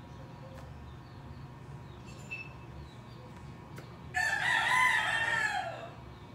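A rooster crows once, about four seconds in: a single long call of under two seconds that drops in pitch at the end, over a low steady background hum.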